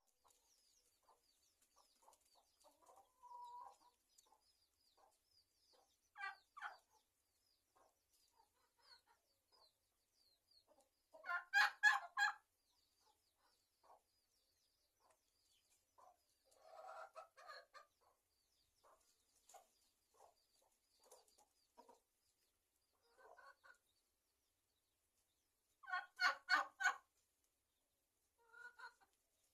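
Chickens clucking in short, rapid runs of calls, loudest about twelve seconds in and again near the end, with faint high chirps in between.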